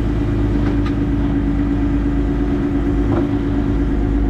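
Game-fishing boat's engine running steadily: a constant low rumble with a steady hum.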